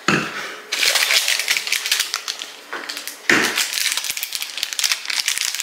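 Dishes rattling and clattering as they are put away: a dense run of quick clinks and knocks, with a short lull about halfway.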